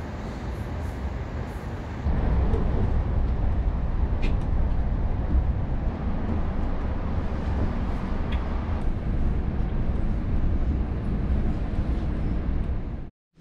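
Steady low rumble of a moving vehicle, growing louder about two seconds in and cutting off abruptly near the end.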